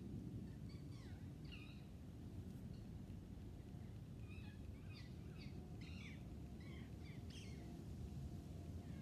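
Faint outdoor ambience: small birds chirping over a steady low rumble. The calls come in a short run between one and two seconds in, then a busier run from about four and a half to seven and a half seconds.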